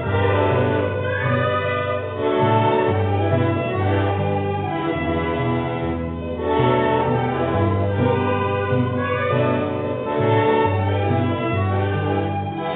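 Accordion and violin playing a tune together over held low bass notes.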